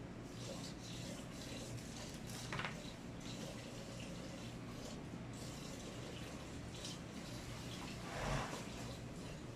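Quiet room noise with a steady low hum and faint ticks, and two soft knocks, one early and one near the end.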